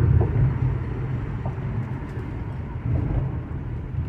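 Steady low rumble of a 2013 Chevrolet Impala on the move, heard from inside the cabin: engine, road and tyre noise as the car slows for a turn. A few faint short chirps sound over it, near the start, about a second and a half in and about three seconds in.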